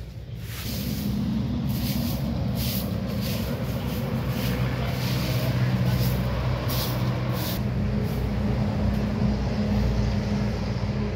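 A steady low engine drone that swells in about a second in and then holds level.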